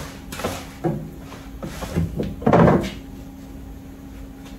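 Boilie-rolling table: the grooved plastic top plate pushed back and forth over the ridged base, giving a run of short sliding, knocking clatters, the loudest about two and a half seconds in. It is rolling a sausage of too-dry boilie paste into balls.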